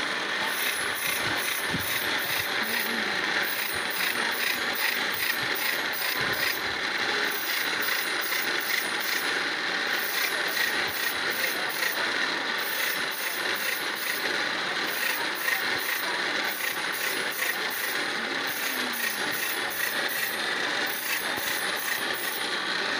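Steel blade being sharpened on a pedal-driven grinding wheel: a steady rasping of metal against the abrasive disc over the running drive of the bicycle, with a fast regular ticking.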